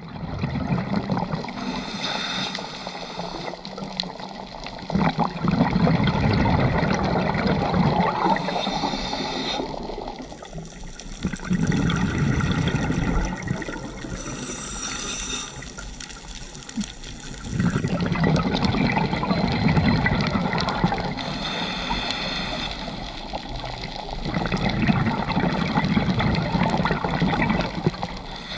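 Underwater recording of a scuba diver breathing through a regulator: a short hiss on each inhale, then a longer rush of exhaled bubbles, repeating every four to six seconds.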